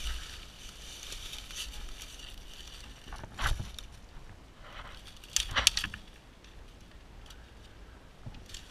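Dry leaf litter and twigs crunching and rustling, with two louder crunches about three and a half and five and a half seconds in.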